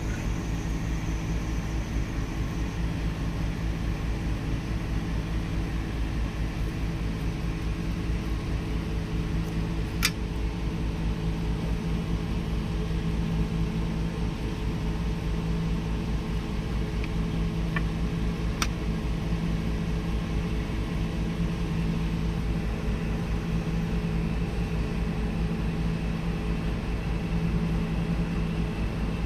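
A steady low machine hum with several held tones, unchanging throughout, with two brief faint clicks about ten and nineteen seconds in.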